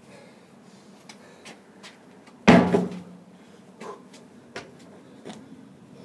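A single heavy thud about two and a half seconds in, with a short low ring after it, among lighter knocks and taps.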